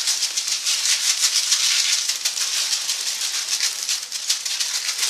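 Clear plastic oven bag crinkling and rustling steadily as it is handled and shaken, with dry seasoning rattling inside it.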